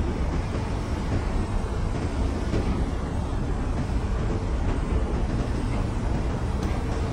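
Grove TM1500 truck crane's diesel engine running steadily, a low, even rumble.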